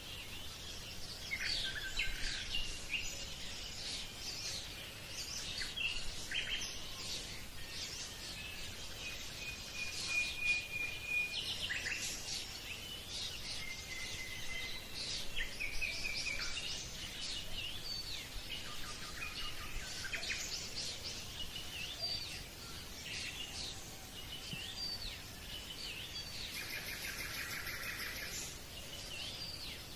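Birds chirping and calling, many short chirps mixed with a few held whistled notes, with a buzzing trill near the end.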